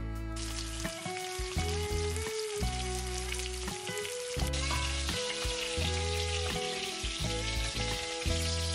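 Salmon pieces sizzling as they fry in hot oil in a wok, an even spitting hiss, over soft background music.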